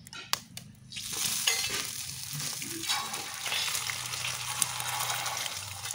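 A sharp tap near the start as an egg is cracked. Then the egg fries in hot oil on a wide, flat iron pan, sizzling steadily.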